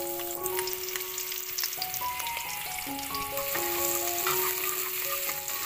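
Chopped shallots and garlic sizzling in hot oil in an aluminium pot, a steady hiss, with the pieces stirred near the end. A simple background melody plays over it.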